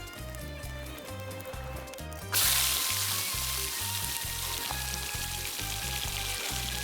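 Salmon fillet going into hot olive oil and sizzling, starting suddenly about two seconds in and carrying on steadily. Background music with a steady beat plays throughout.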